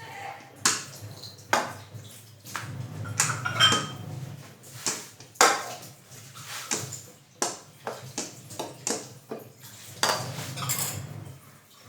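Kitchen utensils clattering against cookware: a string of irregular metallic knocks and clinks, with some longer scraping stretches in between.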